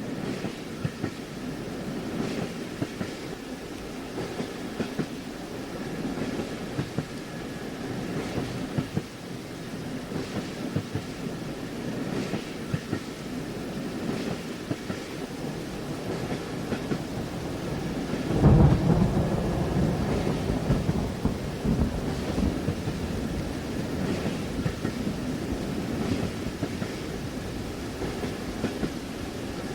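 Train-compartment ambience: rain pattering and the train's wheels clacking over the rail joints, with a louder low rumble of thunder that swells up about two thirds of the way through.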